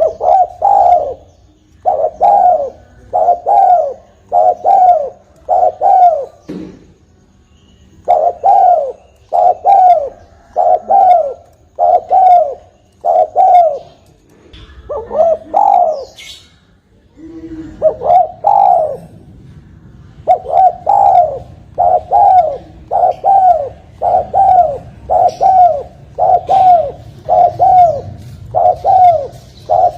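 Spotted dove (tekukur) cooing: a long run of short, hoarse coos repeated in quick succession, broken by a few short pauses.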